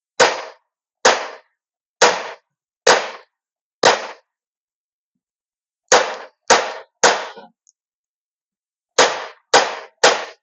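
Rapid 101E electric table-mount stapler firing, each stroke a sharp metallic clack as the head drives and clinches a staple, eleven times. Five strokes come about a second apart, then after a pause three quicker ones, and near the end another three.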